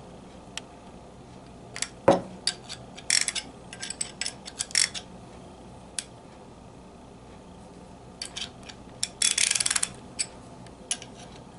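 Scattered metal clicks and clinks as a freshly rebuilt Proto 1/2-inch ratchet is handled, with one louder clink that rings briefly about two seconds in. Near the end comes a short, fast run of ratchet pawl clicks as the new gear and pawls are worked.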